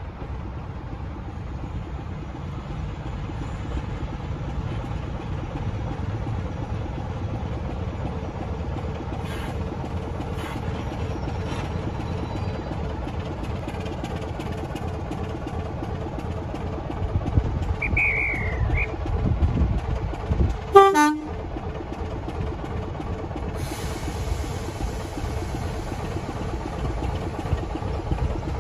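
BR Class 24 diesel locomotive D5054 running, its Sulzer six-cylinder engine giving a steady low rumble that grows louder about two-thirds of the way through. A brief toot of its horn comes near the loudest point.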